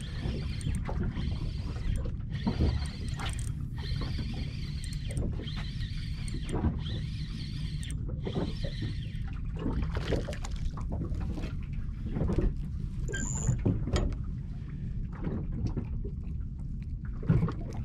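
Sounds aboard a small fishing boat: a steady low rumble with scattered knocks and clicks from gear and the hull.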